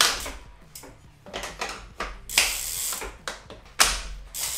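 Road bike drivetrain being pedaled on a Smart ZDrive direct-drive smart trainer: the chain and cassette rattle and whir in irregular loud bursts over a low hum from the trainer.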